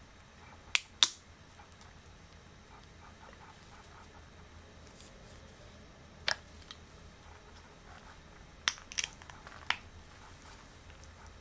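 Extra-long latex gloves being handled, giving a few sharp rubber snaps over a faint rustle: two close together about a second in, one more halfway through, and three in quick succession near the end.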